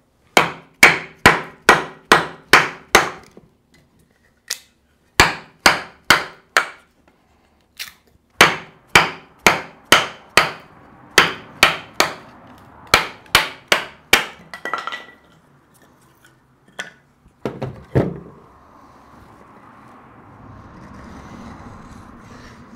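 Wooden baton striking the spine of a handmade 80CrV2-steel bushcraft knife, driving the blade down through a 2x4 standing on a log stump. The sharp knocks come in runs of four to seven, two or three a second, about thirty strikes in all, then thin out to a few last blows and stop as the board splits.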